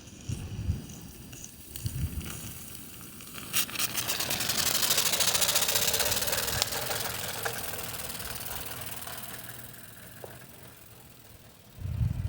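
Mamod Brunel Mk II live-steam tram engine running, its modified exhaust giving a fast, even chuffing hiss. It starts about three and a half seconds in, grows loud, then fades away, with low rumbling thumps at the start and near the end.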